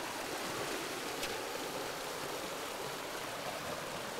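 Fast river current rushing and breaking over shoreline rocks: a steady, even rushing noise.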